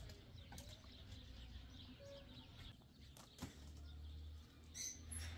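Faint outdoor quiet: a low steady hum with a few scattered light clicks, and a short high chirp near the end.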